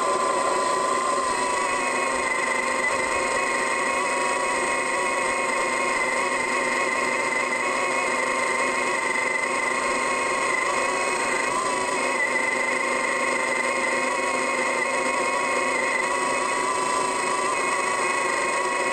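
Trenching machine's diesel engine and hydraulics running steadily under load, with a whining tone over the engine noise, heard from the operator's seat.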